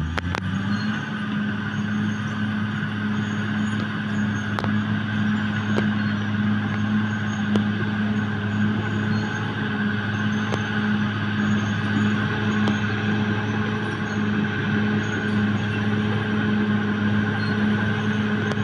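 Caterpillar D6R XL bulldozer's diesel engine running steadily at a constant pitch, with a few faint clicks or clanks now and then.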